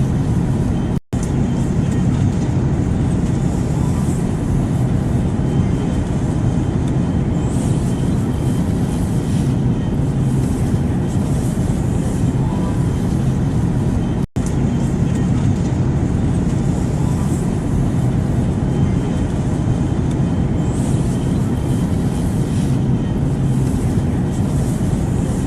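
Steady airplane noise: a dense, even rumble and hiss, heaviest in the low end. It cuts out for an instant about a second in and again about halfway through.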